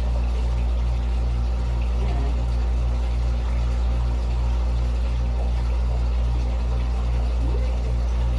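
Steady low motor hum with a faint, fast, even pulse running through it.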